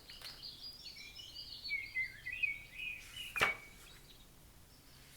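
Songbirds chirping and twittering in a quick run of short high calls for about three seconds, then one sharp tap about three and a half seconds in.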